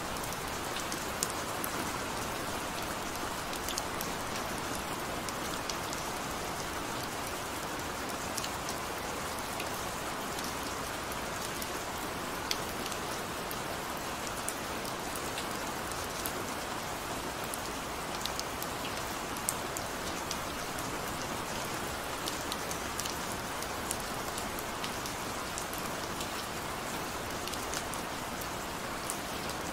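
Gentle rain falling steadily: an even hiss with scattered sharp ticks of individual drops striking.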